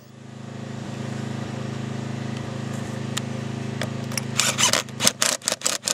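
Cordless impact driver fastening the L-foot to a roof mount in a quick run of short bursts, about five a second, in the last two seconds, over a steady low hum.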